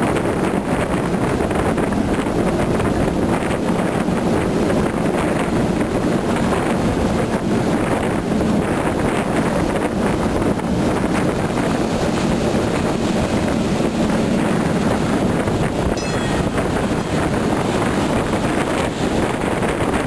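Steady wind rushing over the microphone from the window of a moving train, over the even rumble of the passenger carriages running along the track.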